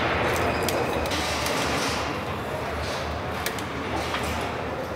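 Truck assembly-hall background noise: a steady din with scattered sharp clicks from work on a truck chassis, and indistinct voices.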